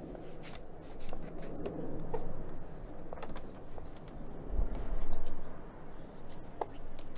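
Clothing rustling and rubbing as two people embrace, with scattered small clicks. A low rumble about four and a half to five seconds in is the loudest part.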